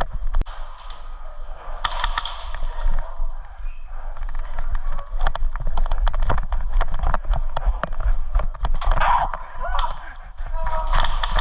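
Indistinct talking in a group, with many sharp clicks and knocks, thickest in the middle, over a steady low rumble on the microphone.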